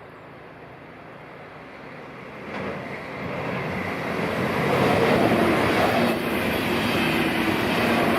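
Swiss passenger train approaching and passing at speed on a high-speed line: a rushing noise that builds from about two and a half seconds in, is loudest about halfway through, and stays loud as the train goes by.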